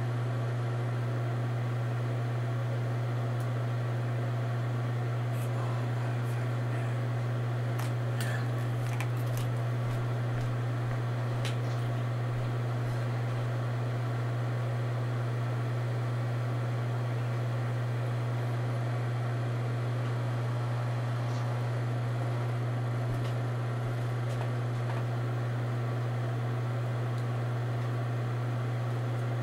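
A steady low hum that does not change, with a few faint clicks about a third of the way in.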